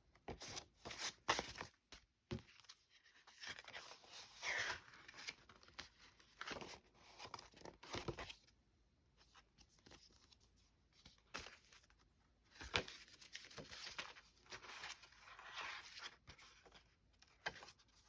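Paper greeting cards and paper doll card stock being handled: irregular short rustles, crinkles and snaps as the cards are flipped through and slid against one another.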